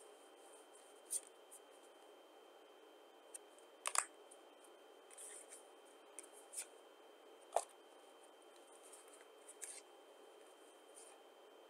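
Playing cards handled in the hands: about a dozen short, crisp slides and flicks at irregular intervals as cards are moved around within a hand. The loudest comes about four seconds in, over a faint steady hiss with a thin high whine.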